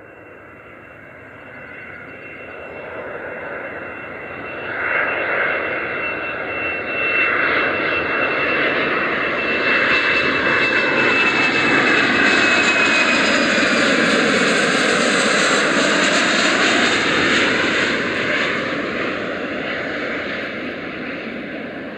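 Boeing 737-400 airliner's CFM56 turbofan engines on landing approach, passing low overhead: jet noise with a high whine that grows louder, peaks about halfway through, then fades as the whine slowly drops in pitch.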